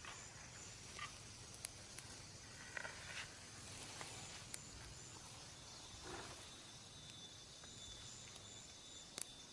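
Quiet forest ambience at dusk: faint insects chirping high up in short repeating pulses, with a thin steady insect buzz joining about halfway through, and a few faint clicks.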